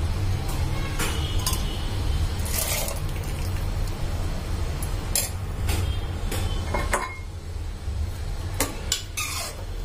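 Metal spoon stirring kidney beans in masala gravy in a pressure cooker pot, clinking and scraping against the pot's rim and sides at irregular moments, over a steady low hum.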